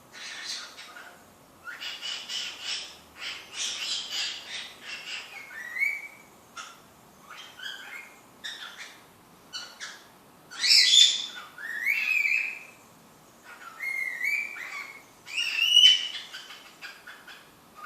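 Cockatiel calling: quick runs of chattering notes mixed with short gliding whistles, with pauses between phrases. The loudest calls come about two-thirds of the way through and near the end.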